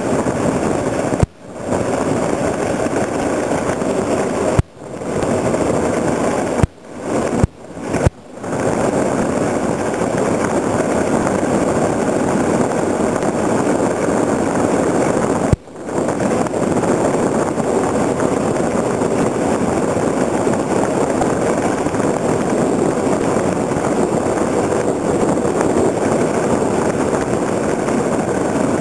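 Engineless wooden soapbox cart rolling fast downhill on wet asphalt, heard from a camera mounted on it: a steady rushing roar of wheels and wind. Several sharp knocks in the first eight seconds and one more about halfway, each followed by a brief dip in the noise.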